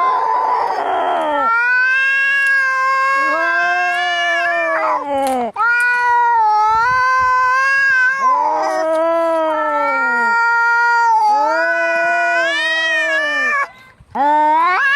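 Two domestic cats caterwauling at each other in an angry standoff: long, wavering yowls, one lower voice and one higher voice overlapping and rising and falling, with a rougher, hissing call at the start. The yowling breaks off briefly about five and a half seconds in and again near the end.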